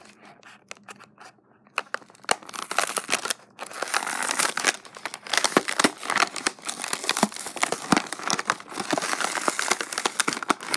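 Toy packaging being opened by hand. A few scattered clicks, then from about two seconds in, dense crinkling and tearing that stops abruptly at the end.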